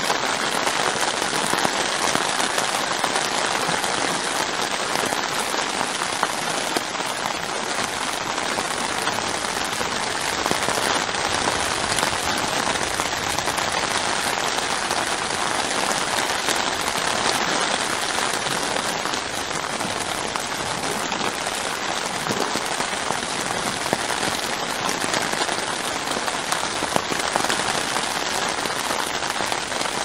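Steady, heavy rain falling on a tarp tent roof, heard from inside the tent as a dense, even hiss of countless drop ticks.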